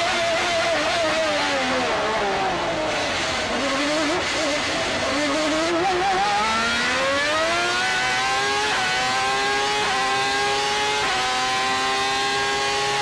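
Ferrari Formula One car's engine heard from the onboard camera. The revs fall through the first few seconds with quick throttle blips as it downshifts into a corner, then climb again under acceleration. Three quick upshifts follow about a second apart, each a brief drop in pitch before it rises again.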